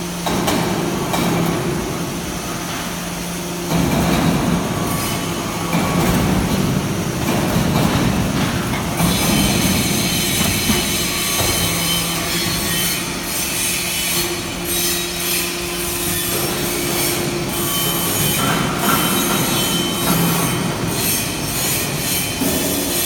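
Hydraulic briquetting press for metal chips and swarf running: a steady motor-and-pump hum under rough, metallic scraping and grinding noise with many sharp clicks as the shavings are compacted.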